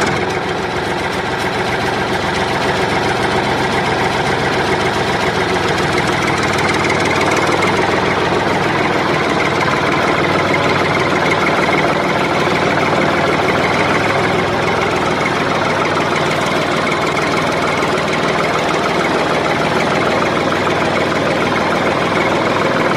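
Tractor engine running steadily at idle, a recorded engine sound laid over the toy tractors.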